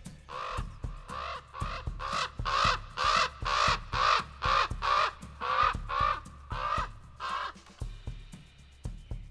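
A bird calling over and over, about two calls a second, in a long run that stops about seven and a half seconds in.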